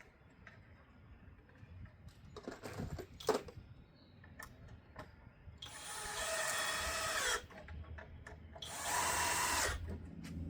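Power drill driving screws into pocket holes in wood, in two bursts, the second shorter. A few knocks of wood being handled come before.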